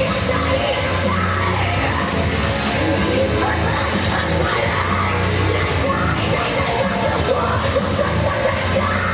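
Loud heavy metal music with yelled, screamed vocals over dense, distorted instruments, running without a break.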